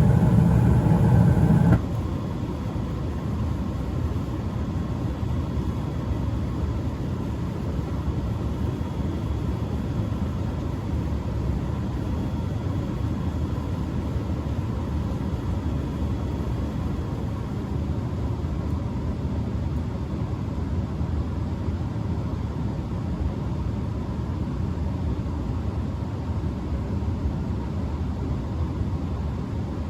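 Bryant Legacy gas furnace running in heat mode with its front panel off, a steady rumble of the blower and burners. A louder hum with several tones cuts off about two seconds in.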